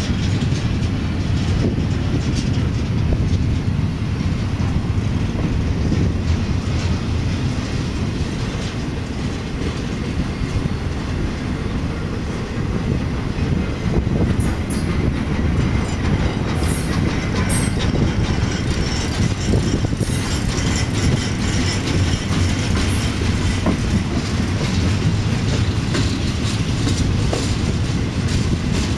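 Intermodal freight cars rolling past close by, double-stack container cars and flatcars carrying highway trailers: a steady deep rumble of steel wheels on rail with rapid clicking over the rail joints. A few brief high-pitched sounds come through about halfway.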